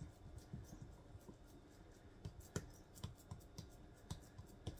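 Faint, irregular light taps and scrapes of a wooden spoon pressing sticky peanut butter and oat mixture into a glass baking dish.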